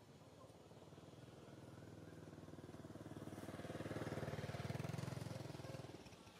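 Engine of a passing vehicle, growing steadily louder over the first four seconds or so, then fading away near the end.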